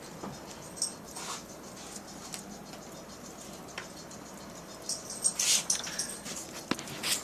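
Dogs moving about in the snow: scattered light crunches, rustles and clicks, busiest about five seconds in.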